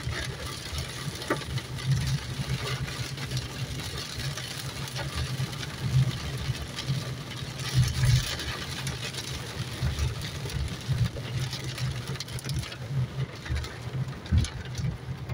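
Inside a car driving through a heavy rainstorm: a steady low engine and road rumble under the even hiss of heavy rain on the roof and windscreen.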